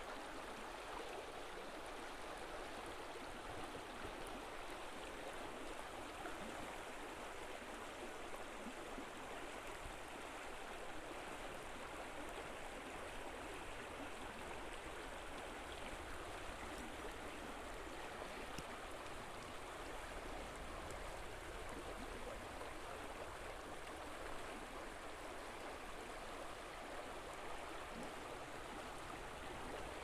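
Shallow creek flowing over riffles: a steady, even rush of running water.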